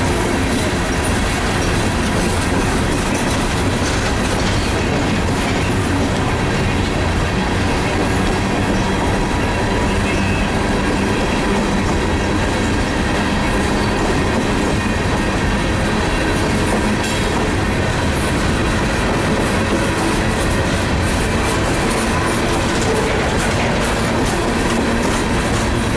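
Empty steel coal hopper cars of a freight train rolling past at track side: a steady, unbroken rumble and clatter of wheels on the rails.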